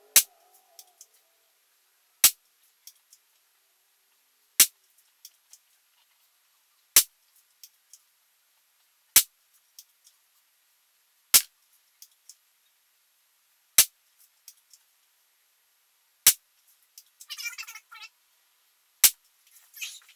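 A Daisy Power Line 1200 CO2 BB pistol fired nine times, steadily, about one shot every two and a quarter seconds, each a sharp crack with faint ticks of the BB striking and rattling after it.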